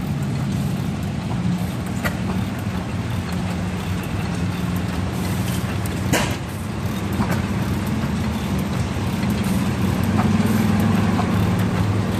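Antique flywheel stationary engines, among them an International Harvester, running: a steady low engine drone with a few sharp pops, the loudest about six seconds in.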